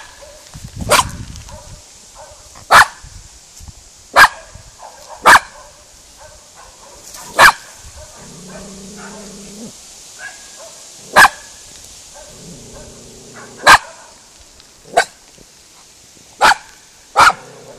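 Miniature schnauzer barking at cows to scare them off: about a dozen sharp single barks at uneven intervals. Twice between the barks there is a lower, drawn-out call of about a second and a half.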